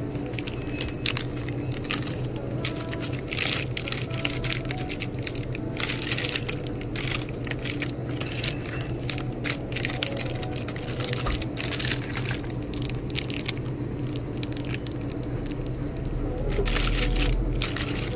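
Plastic food wrappers crinkling and rustling in irregular bursts as packages are handled and picked off the shelf, over a steady low hum.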